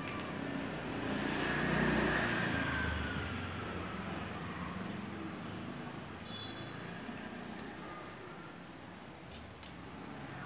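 A road vehicle passing: its noise swells to a peak about two seconds in, with a faint falling whine, then fades into a steady traffic hum. A couple of small sharp clicks come near the end.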